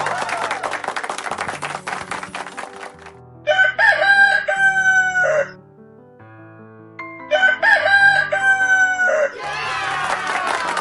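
A rooster crowing twice, each crow about two seconds long, over simple background music. A cheering-crowd sound effect with falling whistle-like tones plays at the start and again near the end.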